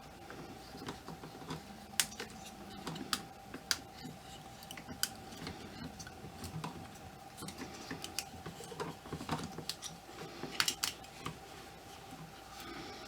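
Scattered small clicks and taps of hands working a ball-jointed doll, its armored gauntlet and a sword, while fitting tiny clear elastic bands; a few sharper clicks stand out, with a quick cluster near the end.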